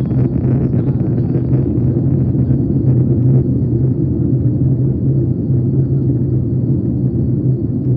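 Boeing 737 MAX 8 airliner cabin noise in flight: a steady low rumble of engines and airflow with a constant hum underneath, heard from a window seat.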